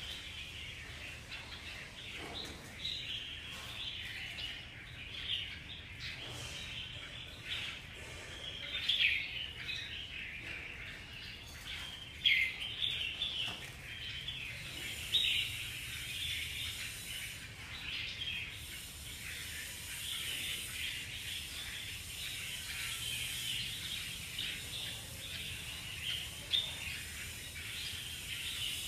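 Many caged red-whiskered bulbuls calling together: a continuous chorus of short, bright chirps and call notes, with a few louder calls standing out.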